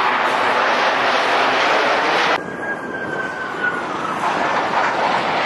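Jet engine noise of Blue Angels F/A-18 Super Hornets passing overhead in formation. It cuts off abruptly about two and a half seconds in, giving way to a slightly quieter jet pass with a faint falling whine.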